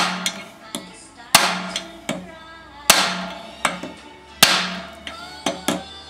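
Hammer striking a piece of aluminium held against the end of a small engine's crankshaft. Four hard blows come about a second and a half apart, each with a short metallic ring, and lighter knocks fall between them. The blows are meant to shock a tight flywheel loose without a puller.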